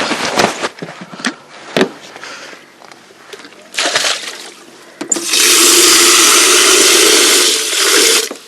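Water running hard into a kettle for about three seconds, starting about five seconds in and stopping abruptly, after a few knocks and clatters of handling.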